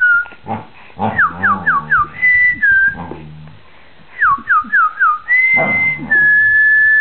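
A person whistling a bird-like chirping tune. It goes in two runs of four quick falling notes, each followed by held notes, and ends on a long steady note.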